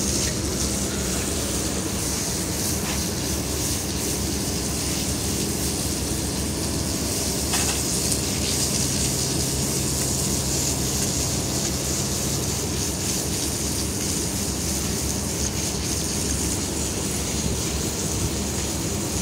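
Water from a hose spraying and splashing over a concrete roof slab as it is rinsed, over a steady rumble and a low hum.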